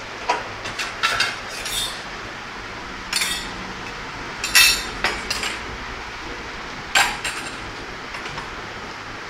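Steel ladles and spoons clinking against stainless-steel trays and bowls: a string of sharp metallic clinks, one every second or so, over a steady background hiss.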